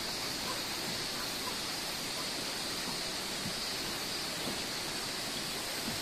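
Steady rushing noise of water from the river and falls below, with a few soft footsteps on the wooden deck of a suspension bridge.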